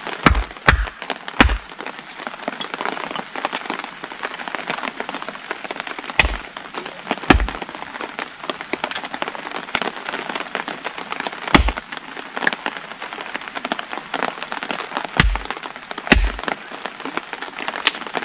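A hatchet chopping small pieces of wood on a chopping block: about eight sharp knocks in small clusters, three close together at the start, then pairs and single strokes spread over the rest. Underneath is a steady patter of heavy rain.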